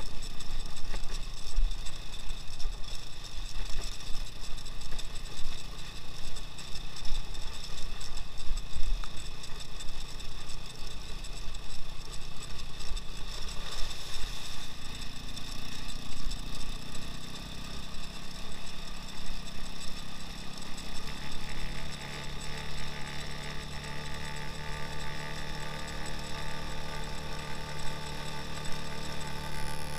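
All-wheel-drive 2x2 motorcycle's engine running while riding along a gravel dirt road, with a fluttering low rumble of wind on the microphone. The engine note changes about halfway through and settles into a steadier hum.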